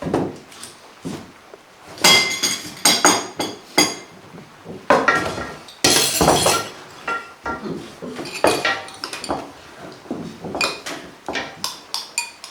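Cutlery, dishes and glasses clinking and clattering at a dinner table, in irregular runs of sharp ringing knocks, busiest in two clusters near the start and the middle.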